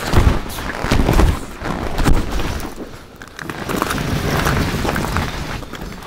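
Nylon fabric of a pop-up ice-fishing cube tent rustling and flapping as it is pulled and set up, with irregular low thumps of handling.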